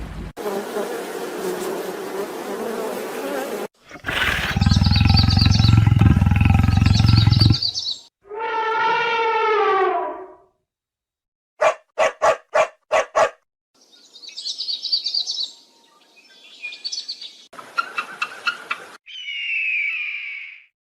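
A string of short, abruptly cut animal-call clips: a loud pitched call over a low rumble, a long call falling in pitch, six quick sharp calls in a row, chirping, a buzzing stretch, and a high falling call near the end.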